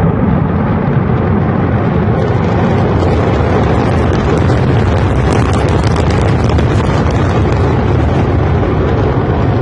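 Rocket launch heard from across the water: a loud, steady rumble of the rocket engines, with dense crackling setting in about two seconds in.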